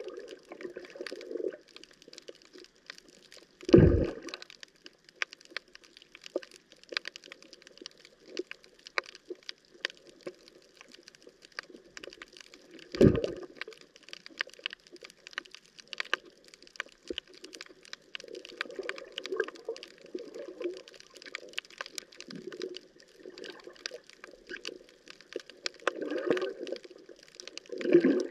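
Underwater reef ambience: a steady crackle of many sharp clicks, typical of snapping (pistol) shrimp. Loud bubbling gurgles come about four seconds in, again near the middle, and near the end.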